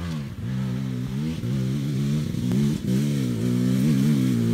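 Dirt bike engine revving up and down again and again, its pitch rising and falling with each blip of the throttle, growing a little louder, as the bike is worked up a steep, loose rocky slope.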